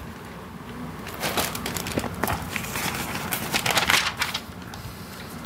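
Magazine paper rustling as a page is turned by hand, a run of crackly rustles between about one and four seconds in.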